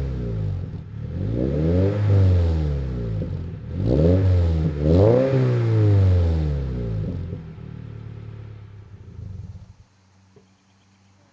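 Subaru BRZ's flat-four engine through an MXP Comp RS aftermarket exhaust, free-revved three times, the last two close together, each rev rising and falling. It then settles to idle and cuts off near the end. The exhaust note sounds a little mean.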